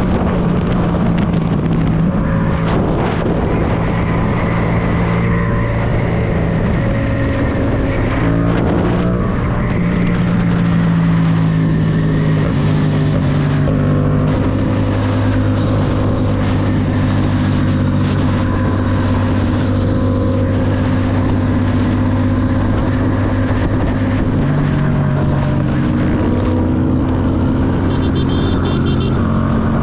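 Yamaha MT-07's 689 cc parallel-twin engine running while riding, its pitch rising and falling several times with throttle and gear changes.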